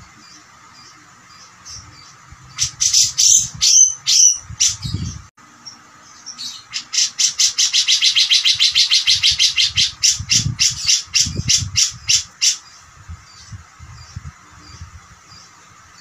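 Caged grey-cheeked bulbul (cucak jenggot) calling loudly: a few sharp gliding notes about three seconds in, then a long, fast rattling run of harsh repeated notes lasting about six seconds, the 'beset' style sought in a masteran recording. Soft low thuds sound underneath.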